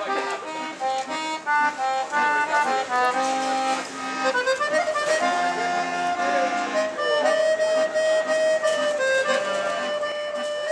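Instrumental music: a melody over chords, with quicker notes in the first half and longer held notes from about halfway through.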